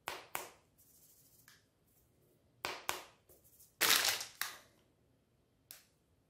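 Plastic ice cream bar wrappers crinkling as hands handle them, in several short crackling bursts, the longest and loudest about four seconds in.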